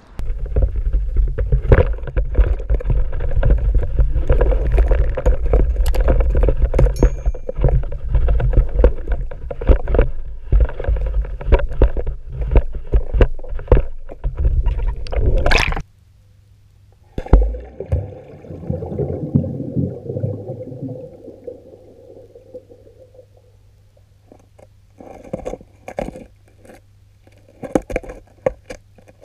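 Muffled water rumble and sharp knocks and clicks heard through an underwater camera's housing as it sinks and is dragged along with the fishing magnet on its rope. The noise cuts off suddenly about halfway through, leaving a softer rumble and scattered clicks.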